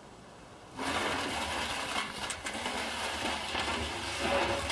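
Gloved hand digging through brittle biochar inside a steel drum: the charred wood crunches and rustles in an irregular, crackly rush that starts suddenly about a second in.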